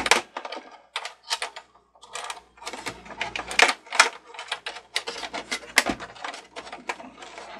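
Quick, uneven plastic clicks and taps, several a second, as hands work wire clips and cables loose inside the stripped plastic housing of an old Cricut Expression cutting machine.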